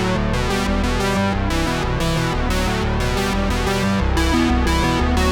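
Background music: an electronic track with synthesizer and keyboard notes over a steady beat.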